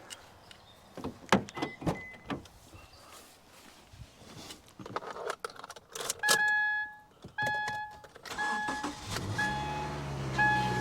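Clicks and knocks of someone getting into the car, then the car's warning chime beeping about six times. Near the end the 2016 Subaru Crosstrek's flat-four engine cranks, catches and settles into a steady idle, started to test an exhaust joint freshly patched with epoxy.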